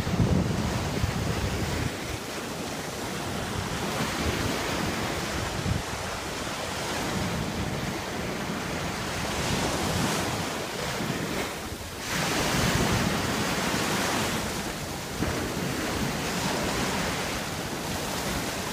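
Small waves breaking and washing up on a sandy beach, the wash swelling and ebbing, with a stronger surge about two-thirds of the way in. Wind rumbles on the microphone at times, most of all at the start.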